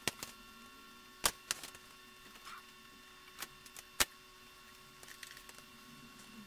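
Faint steady electrical hum with a thin high whine, broken by about half a dozen sharp clicks; the loudest come about a second in and about four seconds in.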